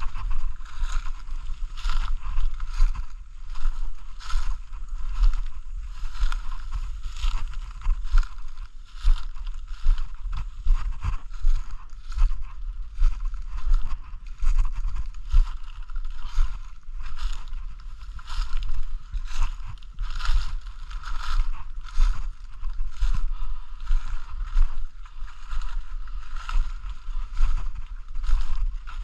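Footsteps crunching through dry leaf litter and brushing past undergrowth at a steady walking pace, over the low rumble of a hand-held camera being carried.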